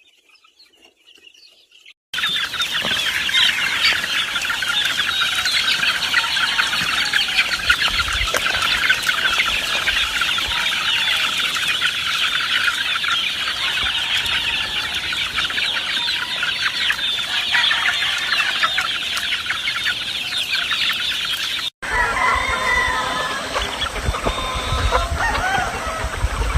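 A large flock of chickens clucking and calling all at once in a dense, continuous din that starts abruptly about two seconds in. Near the end it cuts out briefly, then resumes with fewer, clearer calls over a low rumble.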